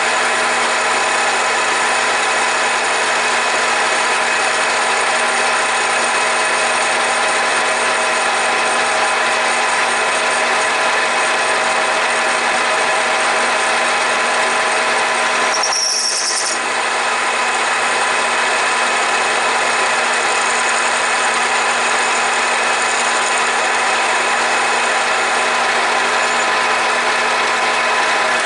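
Grizzly G4003G gear-head lathe running under cut, a steady machine whine of several tones over cutting noise, as a high-speed-steel tool plunges a groove into a leaded brass rod. A brief high-pitched squeal comes about halfway through.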